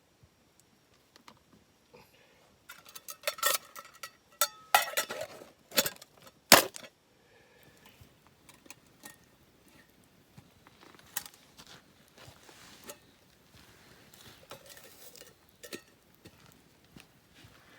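Metal cooking gear clattering: a run of sharp knocks and clinks with brief ringing, loudest about three to seven seconds in, then a few fainter scattered clicks.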